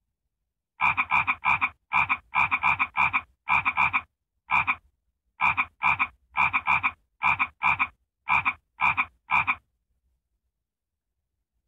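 Frog croaking: a long run of short, rasping croaks, roughly two a second, some in quick pairs and triples, that stops about two seconds before the end.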